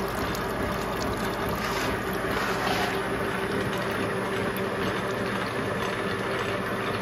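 Gear hob cutting teeth into a gear blank on a 1920s Oesterlein Ohio universal milling machine, with the mill drive and gear train running in a steady drone. Water-based soluble-oil coolant splashes over the cut.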